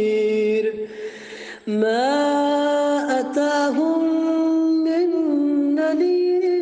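Qur'an recitation in melodic tajweed style by a single man's voice, holding long drawn-out notes with ornamental turns in pitch. A short pause for breath comes about a second in, then one long melismatic phrase.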